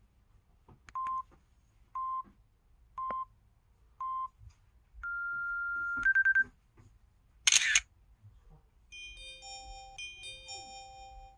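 SKY IM-S330K phone's camera sound effects: four short electronic beeps about a second apart, a longer higher beep, a quick run of four pips, then a loud camera-shutter click. A short electronic chime melody follows near the end.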